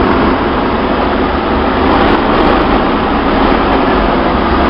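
Chevy straight-six engine with a Weber 32/36 two-barrel carburetor running cold, held at raised revs to warm up, a steady engine and intake sound.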